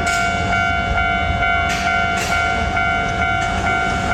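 Japanese level-crossing alarm ringing its repeated electronic 'kan-kan' bell, about two strikes a second, over a low rumble.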